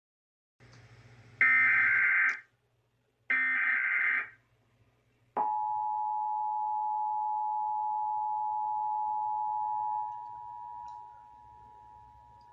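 Emergency Alert System signal: two loud, one-second bursts of buzzing digital SAME header data tones, then from about five seconds in the steady two-tone EAS attention signal (853 and 960 Hz), which drops in volume at about ten seconds. It marks the start of a Required Monthly Test.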